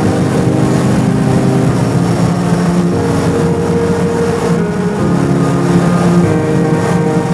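Super Puma helicopter's engines and rotor running steadily, heard from inside the cabin, with background music of slowly changing held chords over it.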